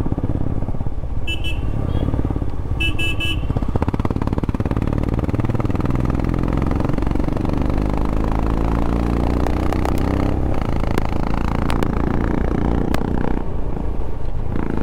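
Royal Enfield Himalayan 411 cc single-cylinder motorcycle engine running while riding in traffic, its pitch rising and falling. A vehicle horn beeps in two short bouts in the first few seconds.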